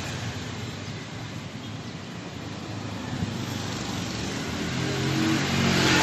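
Steady background noise of passing vehicles, with a low engine-like hum growing louder over the last second or so.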